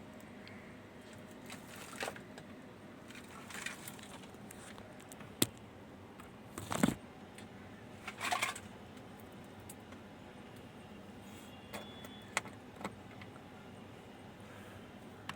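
Scattered light clicks, taps and short rustling clinks of small metal tools being handled on a workbench, with two louder bursts about seven and eight and a half seconds in.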